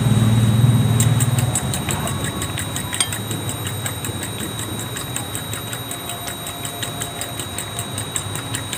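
An engine running, loud for the first second and a half, then dropping to a lower steady hum with fast light ticking.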